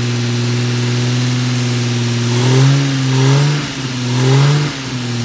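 2002 Lexus GS300's 2JZ-GE inline-six idling, then revved in two short blips, about two and a half and four seconds in, each dropping back to idle. The engine misfires on cylinders 1 and 6 at idle, a fault that clears above about 1200–1400 rpm.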